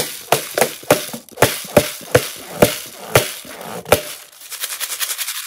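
Slime being squeezed and worked by hand, giving a string of sharp popping clicks, two or three a second, then quicker, lighter crackles near the end. The first pop is the loudest.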